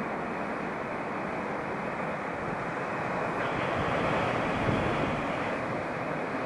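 Sea surf breaking on rocks below, a steady rush of water mixed with wind on the microphone, swelling a little about halfway through.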